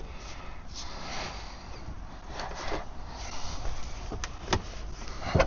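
Steady hiss of rain, with a few brief scrapes and two sharp metallic ticks as the gearbox is worked into position under the car.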